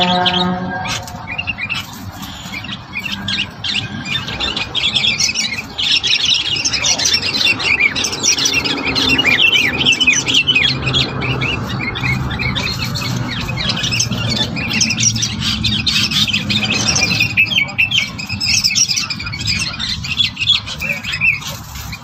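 Small songbirds calling in fast, dense runs of short high chirps and squawks, busiest through the middle and again near the end. A steady low tone with overtones stops about a second in.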